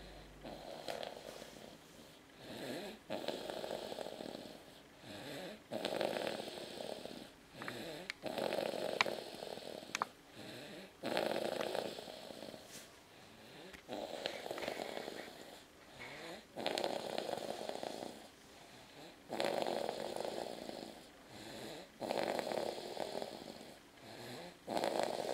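Steady snoring in deep sleep: a long, rough snore on each breath, coming about every two and a half to three seconds, with two faint clicks around the middle.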